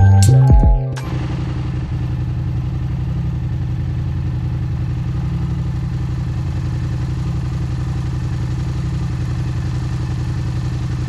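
Yamaha MT-07's parallel-twin engine idling steadily through a MIVV GP Pro aftermarket exhaust, with no revving.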